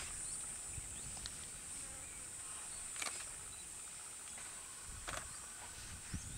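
Steady high-pitched insect drone, with sharp clicks about three seconds in and again about five seconds in, over a low rumble.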